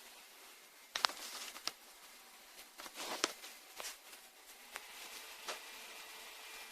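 Small clicks and taps of laptop parts and tools being handled on a workbench: a sharp click about a second in, a few more over the next seconds, with light scuffing between them.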